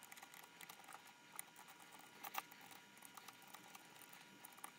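Faint small clicks and scratching of an Allen key turning hex-socket screws into board standoffs, with a few sharper ticks.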